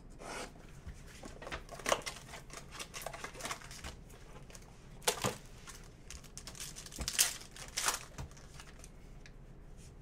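Crinkling and tearing of the wrapping and cardboard as a sealed trading-card box is opened by hand, in uneven rips with several sharp tears.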